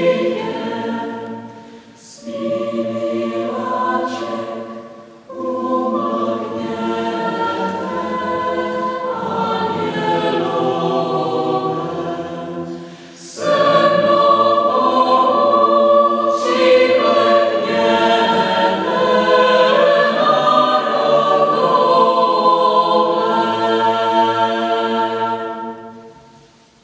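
Mixed choir singing a cappella in a stone church, in phrases broken by short pauses. It grows louder and fuller about halfway through, and the final chord fades away at the end.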